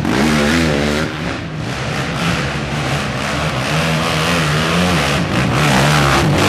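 Race quad (ATV) engines revving hard on a loose dirt hill climb. The pitch swings up and down with the throttle for the first second or so, then holds high as the next quad passes close.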